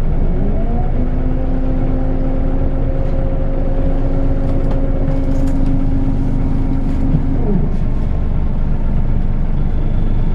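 Scania L94UB single-decker bus moving off under power: a low engine rumble with a whine that rises over the first second, holds steady for several seconds, then drops away about seven and a half seconds in.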